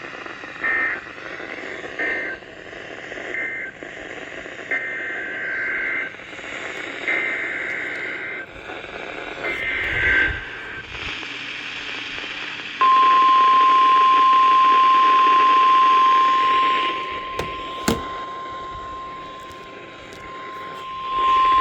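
Emergency Alert System SAME data bursts over radio static: three short bursts of two-tone warbling data, then three longer ones, marking the end of one warning and the header of the next. Then the NOAA Weather Radio warning alarm sounds as one steady high tone for about nine seconds, the loudest part, with a sharp click near its end.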